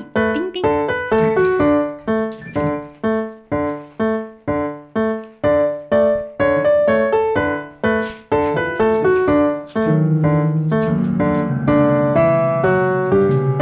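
Piano music: a tune of evenly paced single notes, about three a second, with deeper held notes coming in about ten seconds in.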